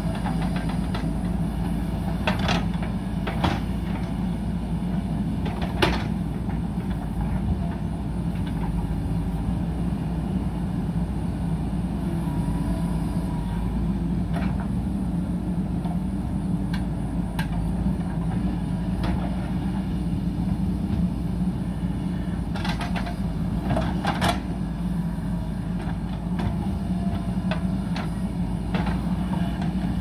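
JCB backhoe loader's diesel engine running steadily under working load as the backhoe arm and bucket move, with a few sharp metal clanks scattered through, several near the start and a couple about three quarters of the way in.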